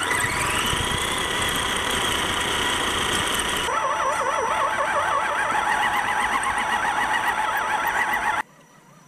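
High-pitched electronic whine and squeal on the RC crawler's onboard camera audio. A tone rises in pitch in the first second and holds, then gives way about four seconds in to a fast warbling whine. It cuts off suddenly near the end.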